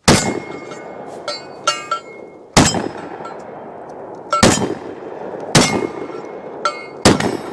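Five shots from a Citadel Boss Hog/Warthog semi-automatic 12-gauge shotgun firing 2¾-inch 00 buckshot, a second or two apart. The action cycles each round without a hitch. Short metallic pings and rings come between the shots.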